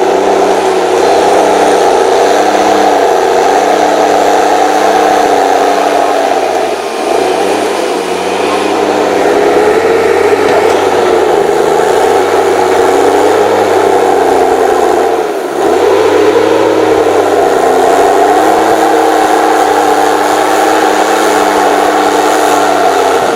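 HSM 904 S's 6.7-litre engine running hard under load. Its revs sag briefly twice, about seven seconds in and again past the halfway mark, then pick back up.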